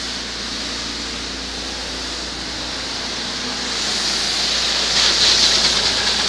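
Citroen 1.6 HDi four-cylinder turbodiesel idling steadily, just restarted after a new timing belt and coolant pump and running well. It gets louder about four seconds in, heard close to the open engine bay.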